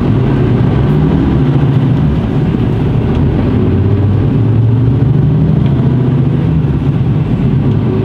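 Mercedes-Benz Actros truck's diesel engine heard from inside the cab while driving, a steady low drone whose pitch rises gently in places as the lorry picks up speed.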